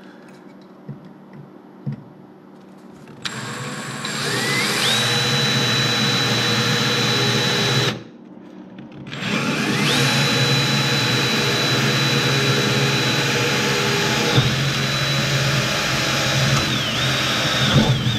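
Power drill pre-drilling a screw hole in sheet metal, run twice with a short pause between. Each run starts with a rising whine that settles into a steady high pitch, and the pitch dips briefly near the end of the second run.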